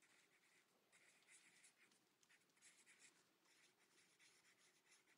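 Faint scratching of a pen writing on the back of a photo print, in short irregular strokes.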